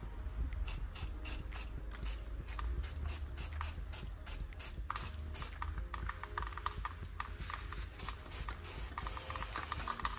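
Aerosol cleaner can spraying onto a differential housing in a rapid series of short squirts, with a more continuous hiss in the second half.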